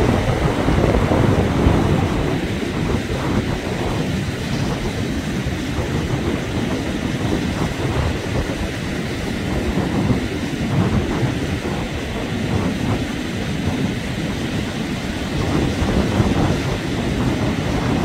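Steady, loud low rumble of wind buffeting the microphone and surf on the shore, rising and falling unevenly. No bird calls stand out.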